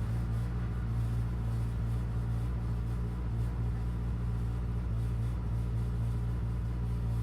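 Vauxhall Vectra Supertouring race car's 2-litre four-cylinder engine idling steadily with a low, even rumble.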